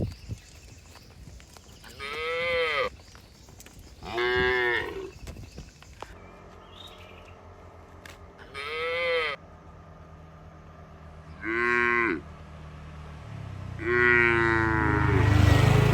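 Cattle mooing five times, each call rising and then falling in pitch, the last one longer. A low steady drone like an engine comes in near the end under the last call.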